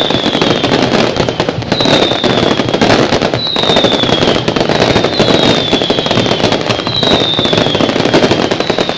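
Fireworks crackling densely and without a break, with a short high whistle, falling slightly in pitch, that repeats about every second and a half.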